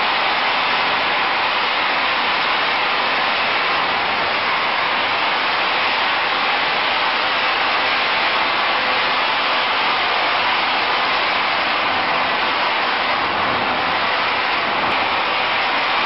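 IVAC PV500 air-powered industrial vacuum system running, a loud, steady, even rushing noise.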